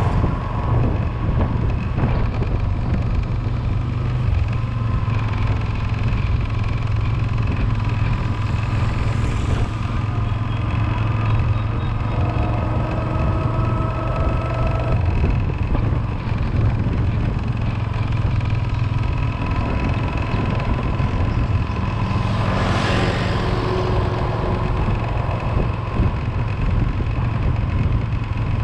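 Steady engine hum and road noise from a moving vehicle, with a brief rushing swell about 22 seconds in.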